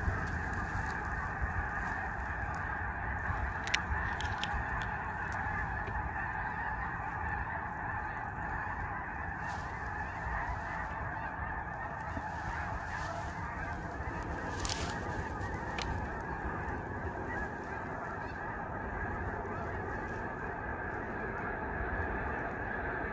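A huge flock of snow geese calling all at once: a dense, unbroken chorus of honking over a low rumble.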